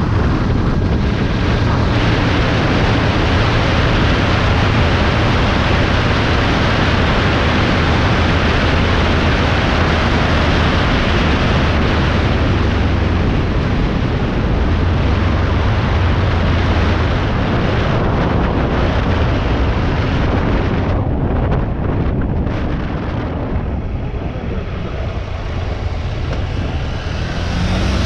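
Steady wind and road noise from a vehicle travelling on a highway, with a deep rumble underneath and wind buffeting the microphone. The rushing eases a little about three-quarters of the way through, then builds again near the end.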